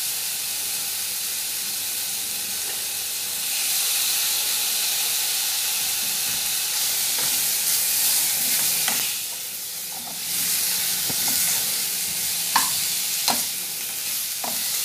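Chicken pieces sizzling in a pan of onion-tomato masala with soy sauce just added, being stirred. The sizzle grows louder a few seconds in and eases briefly about two-thirds through, and the stirring utensil clicks against the pan four times in the second half.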